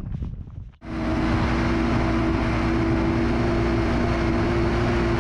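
Ski-Doo Grand Touring snowmobile running at speed, its engine holding a steady pitch under the rush of wind and track noise. It cuts in suddenly about a second in, after a moment of faint rustling.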